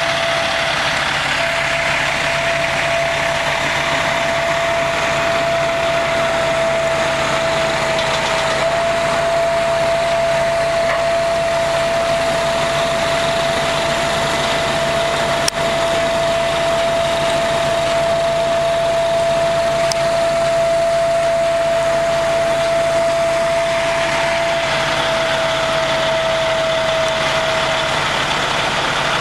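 Heavy semi-truck engines running as the trucks move, a steady noisy drone with a constant high whine throughout and a single sharp click about halfway.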